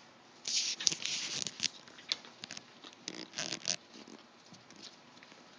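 Rustling and scratching in two short bursts, one about half a second in and one about three seconds in, with a few sharp clicks in between.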